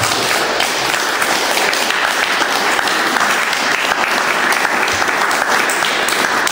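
Audience applauding: many people clapping at an even level.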